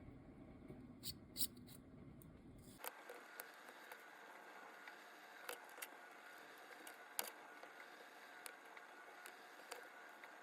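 Faint, scattered small metallic clicks and ticks of watchmaker's tweezers and screwdriver against the parts of an Omega cal.1012 movement being taken apart, a dozen or so light taps with the sharpest two near the start and one in the middle. A low hum stops about three seconds in.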